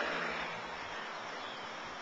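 Vehicle noise fading away over the first second, leaving a steady outdoor background hiss.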